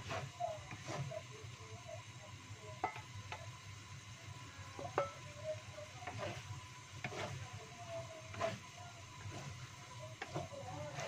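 Wooden spatula stirring and scraping diced chicken and vegetables in a wok, knocking against the pan at irregular intervals over a low sizzle, as a freshly added cornstarch slurry thickens the sauce.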